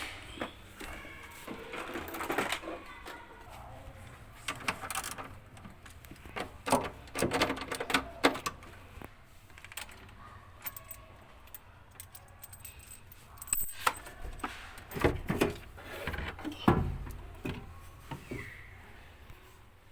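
Irregular clinks, rattles and knocks of tools and metal parts being handled during a washing machine repair, in uneven clusters with short pauses between.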